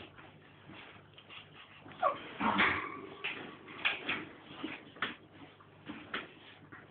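Staffordshire bull terrier puppy whimpering as it plays, with a short falling whine about two seconds in. A few sharp taps and scrapes come from the wooden floor.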